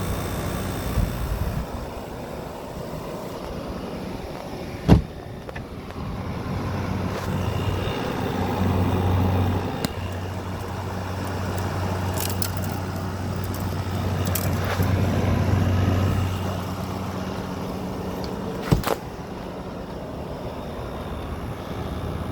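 A 2018 General Electric 6,000 BTU wall air conditioner running: its Qingan rotary compressor hums steadily under the rush of the fan, and the hum swells for several seconds in the middle. Two sharp knocks come, about five seconds in and near the end. The owner thinks the unit is freezing up from an overcharge of refrigerant.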